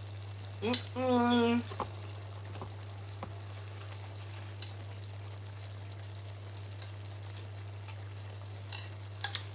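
A short hummed "mmm" from someone tasting food, then a few light clicks of a fork against a ceramic bowl, over a steady low hum.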